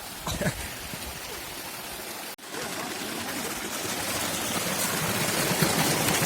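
Steady rushing of a forest waterfall or its stream. It breaks off for an instant about two and a half seconds in, then comes back and grows gradually louder.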